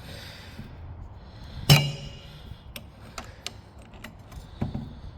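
Flathead screwdriver prising a tight brake pad out of a Suzuki Burgman 400's front brake caliper: scattered light metal clicks, with one sharp ringing metallic clink a little under two seconds in.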